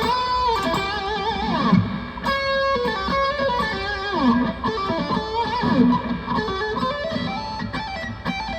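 Electric guitar played through a Nux Cerberus multi-effects pedal set to delay with reverb: single-note lead phrases with pitch slides and vibrato, the notes trailing off in repeats and a reverb wash.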